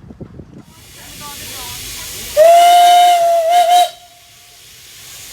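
Steam locomotive whistle giving one loud blast of about a second and a half, a little past the middle, its note wavering briefly just before it stops. Steam hisses before and after the blast.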